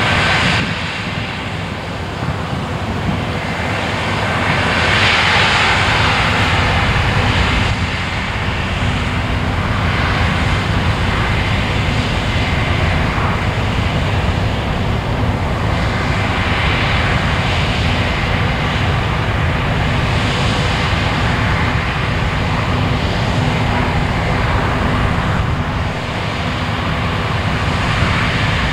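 Claas Lexion 600TT combine harvester running steadily under load, its engine and threshing machinery giving a constant hum with a rushing noise that swells and eases a few times.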